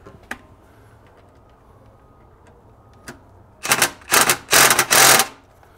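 DeWalt cordless impact driver tightening a worm-gear hose clamp on a coolant pump's hose, run in four or five short bursts over about a second and a half, starting about three and a half seconds in.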